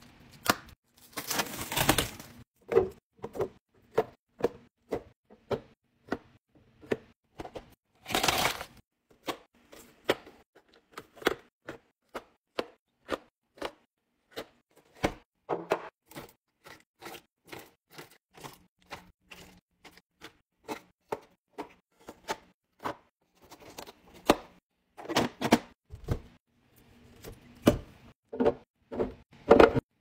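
Packaging and drinks being handled on a countertop: a knife cuts the plastic shrink wrap off a pack of juice boxes, with crinkling and tearing plastic about a second in and again around eight seconds. Throughout are short clicks, taps and knocks as juice boxes, drink pouches and plastic bottles are set into clear plastic bins.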